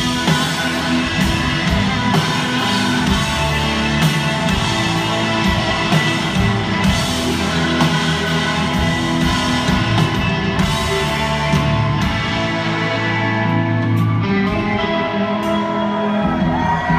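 Live rock band playing an instrumental passage: electric guitars and keyboard holding sustained notes over a drum kit.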